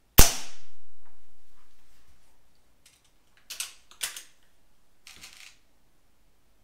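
A single shot from a Weihrauch HW97 spring-piston air rifle fired without a silencer: one sharp crack that dies away over about two seconds. It is followed by a few clicks and a short rattle as the rifle is handled.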